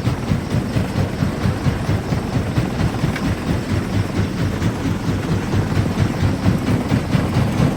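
Jaw crusher running and crushing rock: a steady, heavy rhythmic rumble, pulsing a few times a second, with the knocks of stones breaking.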